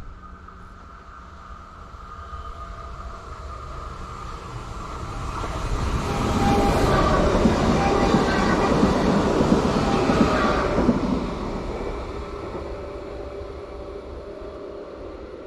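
A train passing: it approaches, is loudest for about five seconds in the middle, then fades away.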